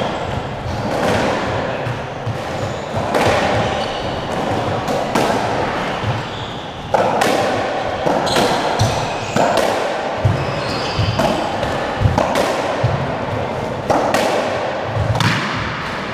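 Squash rally: a squash ball struck by rackets and hitting the walls and wooden floor, about one sharp hit a second, echoing in the court, with short high squeaks of shoes on the floor between shots.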